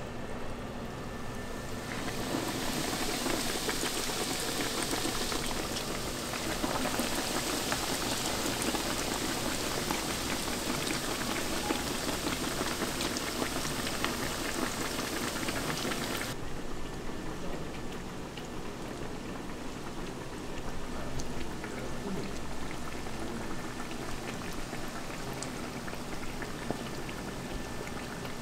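Breaded pork cutlets deep-frying in hot oil: a dense, full sizzle with fine crackles. About sixteen seconds in it suddenly turns softer, the highest hiss gone.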